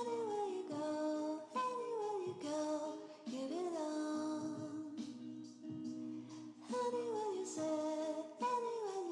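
Background music with a singing voice: a melody in phrases, some notes sliding downward.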